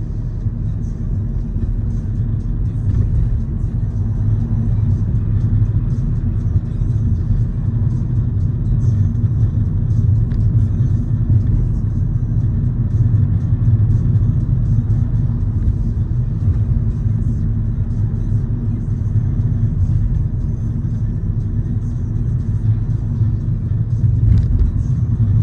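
Steady low rumble of a car driving at an even speed, tyre and engine noise without sharp events.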